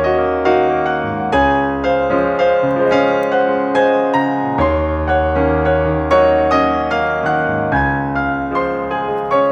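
Background music: a gentle piano melody of evenly paced notes over held bass notes.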